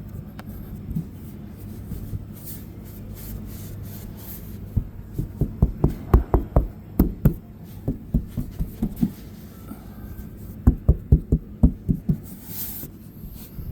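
Dull thumps on an RV roof deck in two quick clusters, a few a second, over a steady low hum: the roof is being tested for soft spots and sounds solid.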